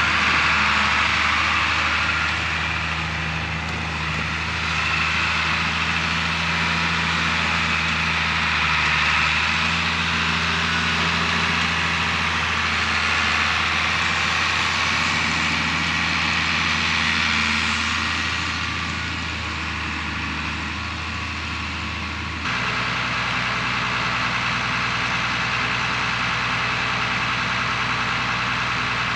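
Old tractor's engine running as it works with a front-end loader, a steady drone whose pitch shifts slightly as it moves. About two-thirds of the way through the sound changes suddenly to a different, even idle.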